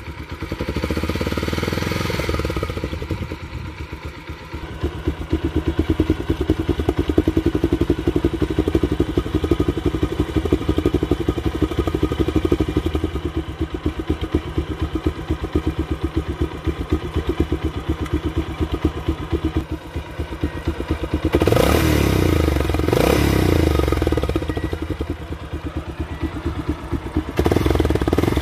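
Bajaj Pulsar motorcycle's single-cylinder engine running and being revved several times, its exhaust blowing into an empty beer can wired behind the silencer, a homemade trick meant to make it sound like a sports bike. The revs climb sharply about three-quarters through and again near the end.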